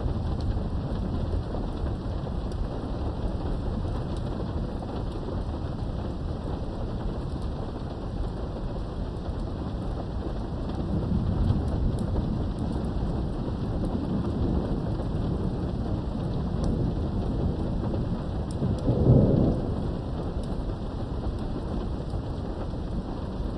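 Thunderstorm with steady rain and continuous low rolling thunder; the thunder swells about halfway through and peaks in a louder rumble near the end.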